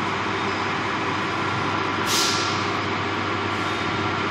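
Steady machine hum of an automated solar panel production line's conveyors and equipment, with one short hiss of compressed air about two seconds in, as from a pneumatic valve venting.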